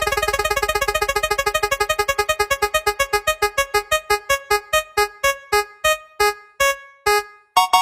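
Electronic keyboard-like notes repeating in a fast run that slows steadily, the notes spreading further apart until they stop near the end.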